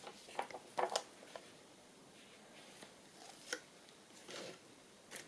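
Faint handling of paper and card: a few light rustles and taps, clustered about a second in and again around three and a half seconds.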